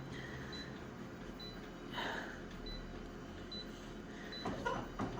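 Konica Minolta office copier running idle with a steady low hum, faint short high blips about once a second, and a brief rustle about two seconds in.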